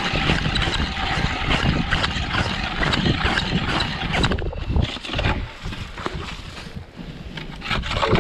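Wind buffeting the microphone: a loud, uneven rumble with gusty crackle, dropping off somewhat in the last couple of seconds.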